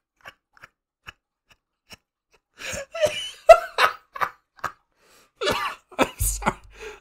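A person laughing hard in short breathless bursts and gasps. It is near silent at first apart from a few small clicks, and the bursts grow louder about three seconds in.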